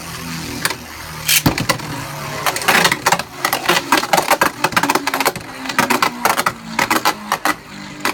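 Two Beyblade Burst spinning tops, Vise Leopard and Blast Jinnius, whirring steadily in a plastic stadium, with repeated sharp clacks as they collide. The clashes come thick and fast from about two and a half seconds in.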